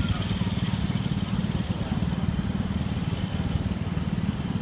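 Steady low rumble of city street traffic, with no single sound standing out.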